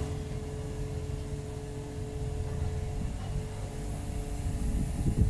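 An engine running steadily: a low rumble with a constant humming tone above it, and a few louder low bumps near the end.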